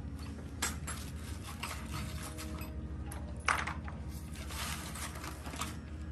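Metal clinking and scraping, as of tools and engine parts being handled, over a steady low hum. Two sharp clinks come about half a second in and about three and a half seconds in, the second the loudest, with a stretch of scraping after it.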